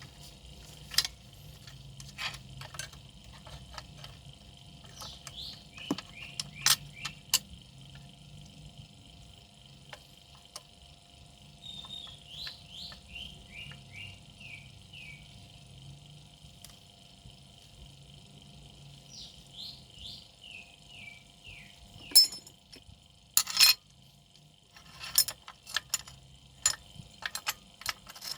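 Metal parts and hand tools clinking and tapping against each other as an electric hand planer is taken apart to change its blades, in scattered single clicks with the loudest pair of clinks about two-thirds of the way through. Short falling chirps and a faint steady high whine run behind it.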